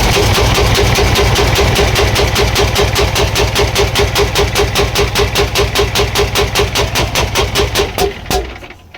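CAMC CM6D28 430 hp diesel engine running with a loud, sharp rhythmic knock, about five to six knocks a second, which slows and stops as the engine is shut down near the end. The knock is very loud, like rapid backfire, and the mechanic puts it down to a valve. The title blames damage from overusing the exhaust brake.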